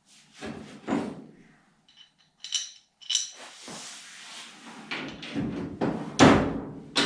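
Metal car parts being handled and fitted by hand: a few clunks, a brief metallic jingle about halfway in, a stretch of scraping, and a loud knock near the end.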